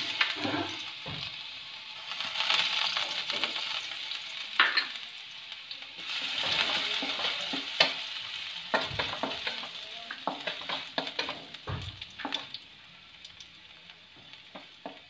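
Chopped garlic sizzling in hot coconut oil in an aluminium kadai, stirred with a wooden spatula that scrapes and taps against the pan. The sizzle fades toward the end.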